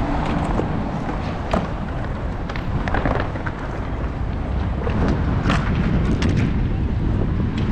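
Outdoor city ambience: wind buffeting the microphone over a steady rumble of distant traffic, with a few short, sharp clicks scattered through it.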